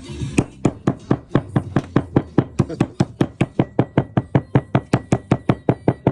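Knife chopping food on a cutting board in quick, even strokes of about four a second, starting about half a second in.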